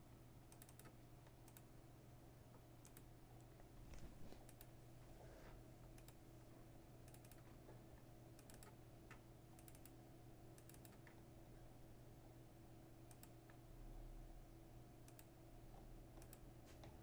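Faint computer mouse clicks, many in quick pairs like double-clicks, over a steady low electrical hum.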